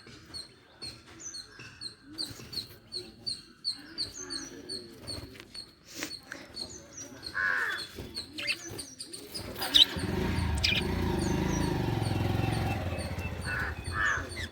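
Lovebirds chirping, a quick even run of short high chirps, with a harsher squawk about halfway through. From about ten seconds in, a louder steady low rumble takes over.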